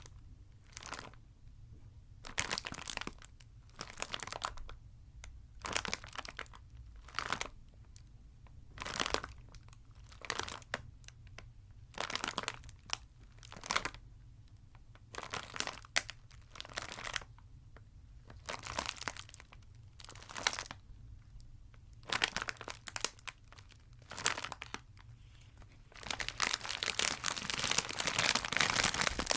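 Close-up crinkling of wrappers in short handlings about once a second, turning to steady, denser crinkling near the end.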